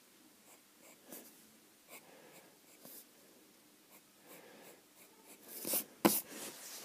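Pencil strokes scratching on paper, short and irregular, as a drawing is neatened up. Near the end there is a louder scrape followed by a sharp tap.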